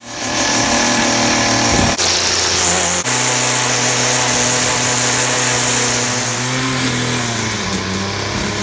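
Stihl string trimmer engine running at high revs, with a hiss of line cutting. The note changes abruptly about two and three seconds in and drops in pitch near the end.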